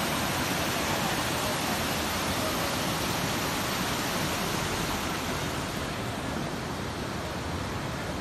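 Jhelum River rapids rushing over boulders: a steady, fast white-water rush that eases a little near the end.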